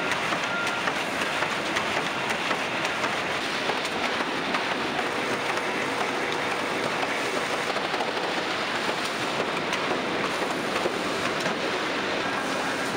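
Steady, even noise of veneer-line machinery running: belt conveyors carrying freshly clipped sheets of veneer from the clipper toward the stacker, with faint scattered ticks.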